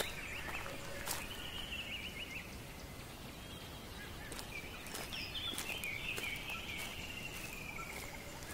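Birds singing outdoors: chirps and trills with gently falling phrases over a low background hiss, and a few faint taps.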